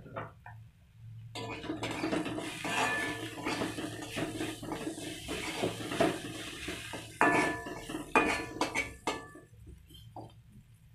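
Metal spatula scraping and clinking against a metal wok as chopped onion, green chillies and spices are stir-fried. It starts about a second in, with sharper clanks near the end, and stops about two seconds before the end.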